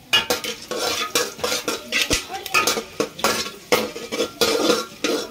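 Metal spatula scraping and stirring against the bottom and sides of an aluminium pot, turning whole spices in mustard oil, in quick repeated strokes about three a second.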